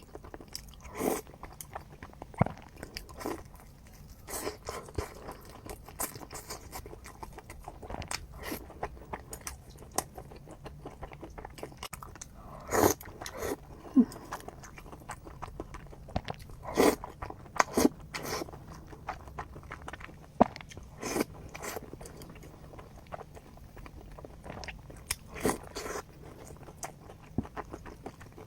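A person chewing and eating soft sweet-and-sour potatoes close to the microphone: irregular mouth clicks and smacks, a few louder than the rest.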